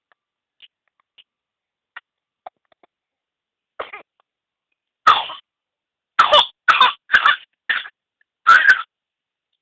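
A sick person coughing: one weaker cough about four seconds in, then a run of about six loud coughs in quick succession over the last four seconds.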